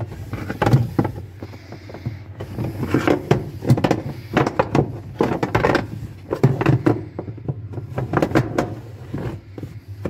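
Irregular plastic knocks and clatter as a plastic cover plate and corrugated drain hose are handled and pushed into place in a twin-tub washing machine's casing.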